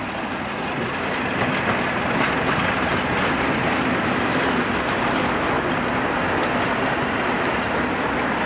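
Two British Rail Class 37 diesel locomotives running coupled as light engines past at close range, their English Electric V12 diesel engines running. The sound grows louder over the first second or two, then holds steady as the locomotives pass.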